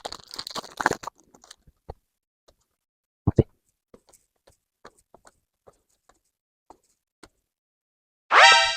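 Foil booster pack crinkling as it is torn open, then soft scattered ticks and one light knock as the trading cards are handled. A brief pitched sound comes near the end.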